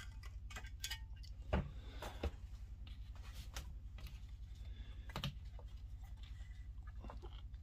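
Scattered light clicks and knocks from handling an opened hard disk drive, as the top cover is set down and fingers move over the head assembly and base, over a steady low hum.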